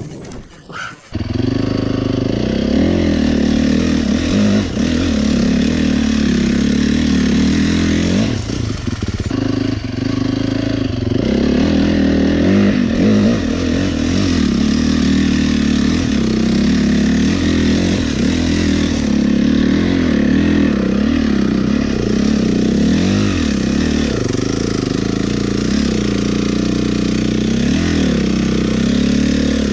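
Honda CRF450 dirt bike's single-cylinder four-stroke engine coming in sharply about a second in, then running with the revs rising and falling.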